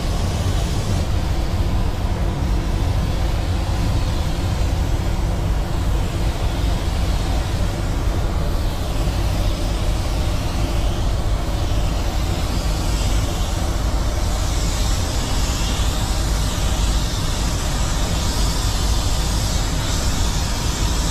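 Steady rush of air in a paint spray booth: a low ventilation rumble under the hiss of a compressed-air gravity-feed spray gun laying down paint.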